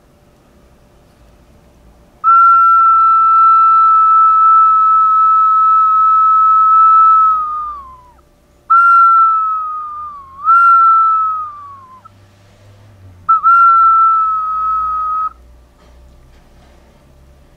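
A person whistling one clear high note, held steady for about five seconds before it sags and drops away. Then come two shorter notes that each fall in pitch, and a last note of about two seconds.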